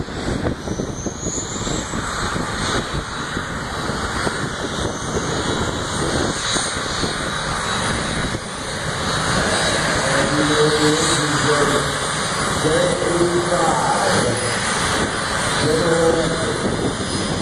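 Jet engine of a jet drag-racing car running: a steady roar with a high whine that rises in pitch about a second in, swelling a little louder partway through. Voices speak over it in the second half.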